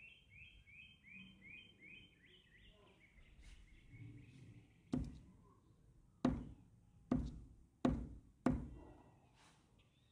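Five sharp hammer blows on a small 3 V battery that has already burst and flared. The first comes about five seconds in and the rest follow in quick succession, each dying away quickly. Before the blows, a bird chirps over and over in short falling notes.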